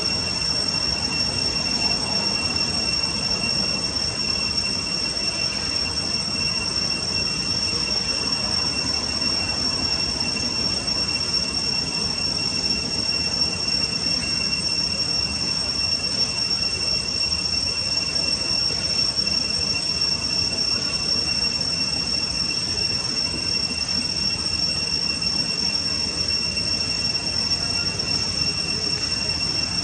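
Insects droning in a steady, high-pitched whine that holds without a break, over an even background hiss.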